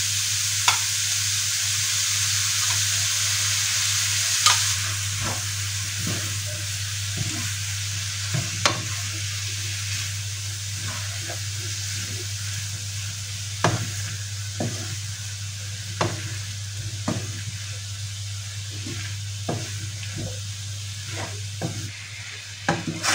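Broccoli, bell peppers and carrots sizzling in a hot non-stick wok right after a sauce is poured in. The sizzle is loudest for the first few seconds, then settles lower. A wooden spatula knocks and scrapes against the pan now and then as the vegetables are stirred.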